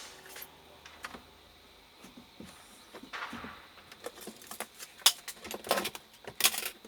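Scattered light clicks and taps, coming more often in the last couple of seconds.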